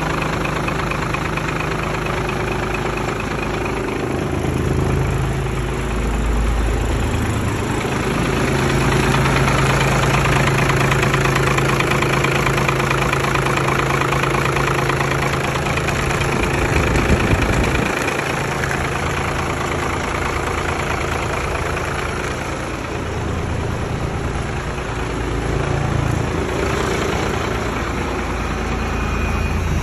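1995 Cummins B5.9 210 hp inline-six diesel engine running at idle.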